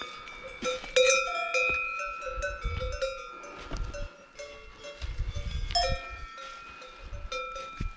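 Cowbells on cows in the forest clanking irregularly. Several bells of different pitch ring over one another, each strike fading out.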